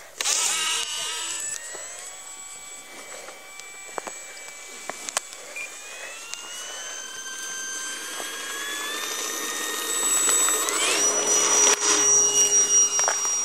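Electric motor and propeller of a Durafly T-28 Trojan RC plane whining in flight, the pitch climbing slowly. About eleven seconds in the whine jumps sharply higher and gets louder.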